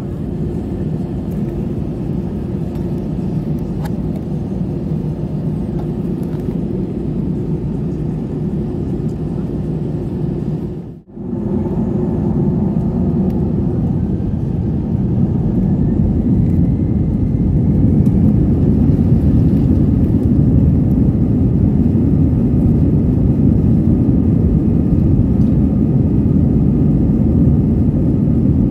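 Cabin noise of an Airbus A320's CFM56 turbofan engines heard from a seat by the wing: a steady low rumble that cuts out briefly about eleven seconds in, then grows louder, with a faint rising whine, as the engines spool up for the take-off roll.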